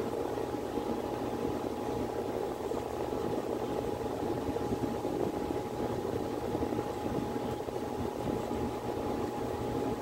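Miller E2 series furnace running in heating mode: a steady rush of moving air with a thin, constant whine above it and a low hum beneath.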